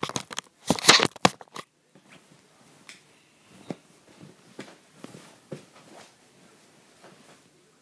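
Rustling and knocking from things being handled right next to the microphone: a loud flurry of clicks and rustles about a second in, then scattered fainter clicks and bumps.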